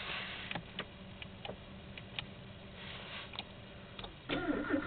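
Citroën BX 16 TRS with the ignition on before a cold start after standing about three months: a faint steady hum and scattered light clicks. Near the end the starter kicks in and cranks the engine with a quick regular pulsing.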